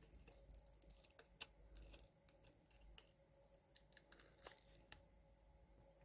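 Faint crackling and ticking of a flexible silicone mold being peeled away from a cured resin piece, thickest in the first two seconds, then a few scattered ticks.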